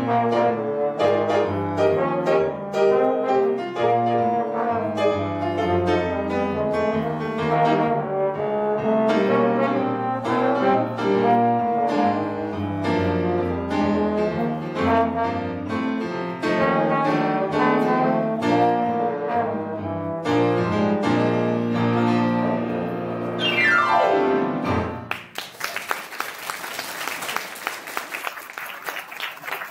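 Two trombones and a grand piano playing a lively piece together, ending about 24 seconds in with a fast downward sweep. Audience applause follows.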